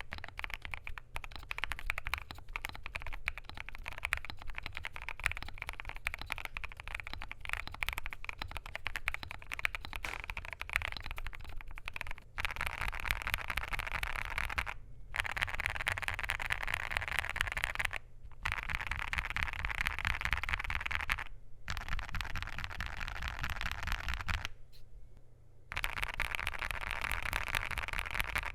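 Continuous fast typing on a KBDfans Tofu65 2.0 mechanical keyboard with lubed and filmed WuqueStudio WS Morandi linear switches, a polycarbonate plate and PBT keycaps. The clicking stops briefly several times in the second half. A steady low hum runs underneath.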